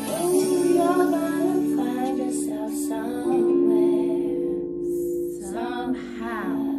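A slow song playing: long held chords with a woman's singing voice, the voice rising and falling in pitch near the end.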